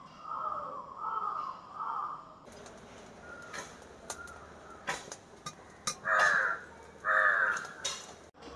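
Crows cawing: three short calls at the start, then two louder caws about six and seven seconds in, with a few sharp clicks and knocks in between.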